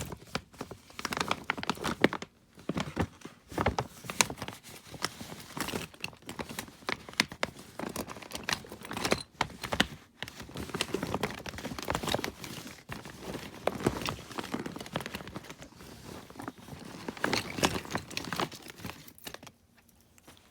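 Plastic bag crinkling and rustling as small plastic toys are rummaged through, with many irregular clicks; it dies away near the end.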